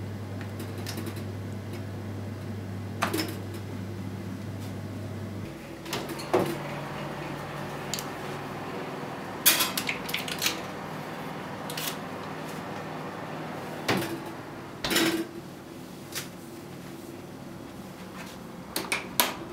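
Oven door opened, a baking tin slid onto the metal wire rack, and the door closed: a string of sharp metal clunks and knocks, the loudest in the middle, with a few more knocks near the end. A steady low hum stops about five seconds in.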